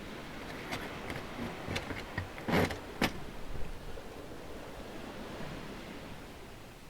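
Steady wash of waves on a beach, with a few sharp knocks; the two loudest come close together about two and a half and three seconds in.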